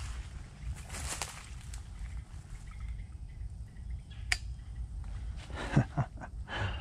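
Quiet woodland ambience with a low steady rumble and a few brief rustles, and one sharp click a little past four seconds in.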